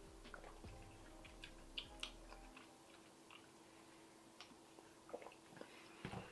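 Near silence with faint swallowing and small clicks as a person takes swigs of carbonated soda from a plastic bottle, over a faint steady hum.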